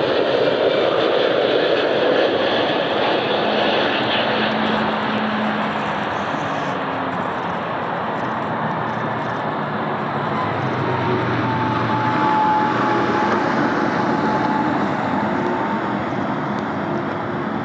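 Airliner engines running steadily: a wide rush of engine noise with faint whining tones that drift slowly in pitch.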